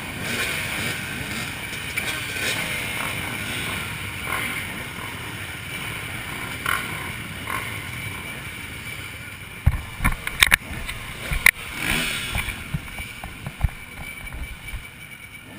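Motorcycle engines running, with a few sharp knocks about ten seconds in.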